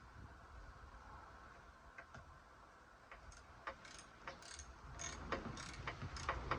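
Ratchet wrench clicking in short, irregular runs, starting about three seconds in and growing quicker and louder, as a bolt is worked on the engine mount.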